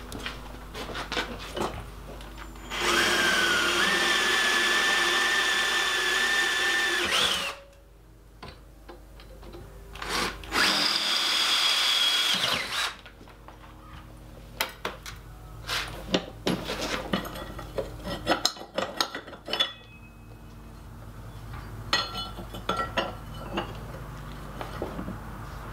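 Cordless drill boring into steel flat bar clamped in a vise: two runs of a few seconds each with a steady whine, the second shorter. Scattered light clicks and taps follow.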